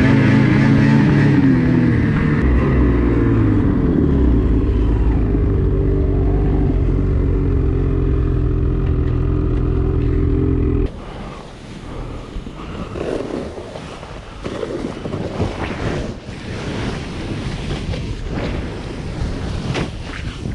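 Ski-Doo Summit two-stroke snowmobile engine running steadily under way, its pitch dropping in the first few seconds, then cutting off abruptly about halfway through. After that comes wind rushing over the microphone and a snowboard hissing and scraping through powder snow.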